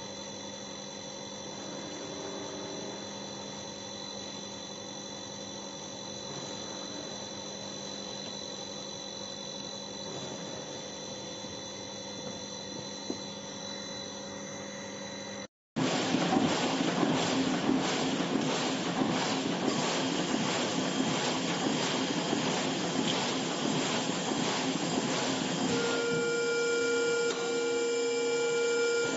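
Bobst 102 BMA hot foil stamping press (1998): at first a steady hum with a few fixed tones, then, after a sudden break about halfway through, the press running much louder with a noisy, faintly regular clatter. Near the end a steady tone sounds for about three seconds over the running.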